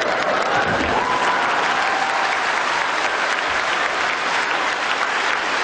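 Crowd applauding: a loud, even clatter of many hands clapping, with a faint held call from someone in the crowd about a second in.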